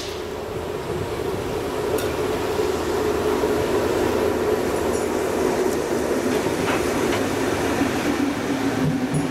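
Pendolino Sm3 electric tilting train running into the station, its rumble growing louder as it comes alongside. A hum underneath falls slowly in pitch as it slows to stop, with a few light clicks from the wheels over the rails.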